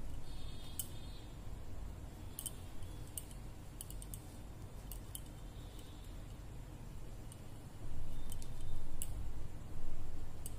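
Scattered faint clicks and rustling of hands working a metal crochet hook through yarn, with a few louder handling rubs near the end.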